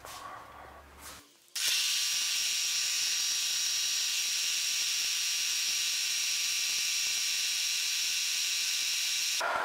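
Vertical milling machine's spindle running at a steady speed with an edge finder chucked in it, a constant whine and hiss with several steady high tones. It starts suddenly about a second and a half in and does not change.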